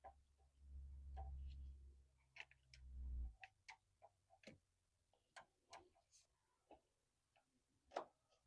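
Faint, irregular metal clicks and clinks of hand tools and bolts as an engine mount bolt is worked into its thread, with a low rumble for the first three seconds or so.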